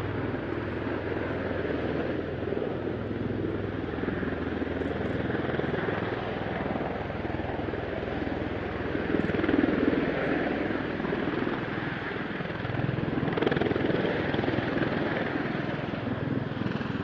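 Bell Boeing V-22 Osprey tiltrotor with its rotors and turbines running: a steady, dense drone with a low hum under it. It swells twice, around the middle and again near the end, then cuts off suddenly.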